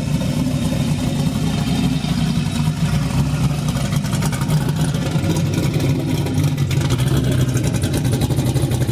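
Turbocharged 6.0-litre LQ4 V8 with a 7875 turbo and SS2 cam, running steadily without being revved.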